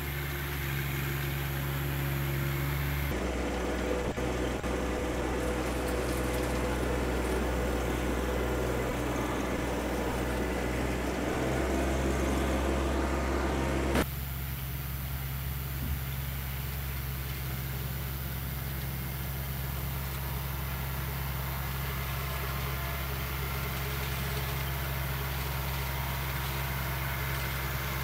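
Compact John Deere diesel tractor engine running steadily under working load. The sound shifts abruptly about three seconds in and again about fourteen seconds in, with a short click at the second change.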